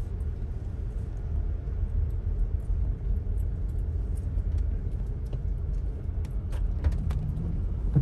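Steady low rumble of a car driving, its road and engine noise heard from inside the cabin, with scattered light ticks.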